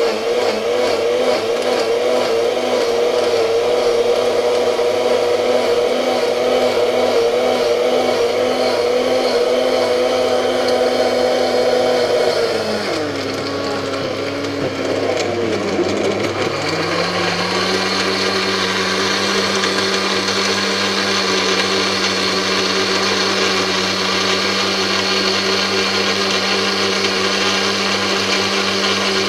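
Electric countertop blender motor running as it purées watermelon chunks with water into a smooth liquid: a steady whine with a slightly wavering pitch, which dips and wobbles about twelve seconds in as the chunks are drawn down into the blades, then settles lower and steady as the whole jug blends.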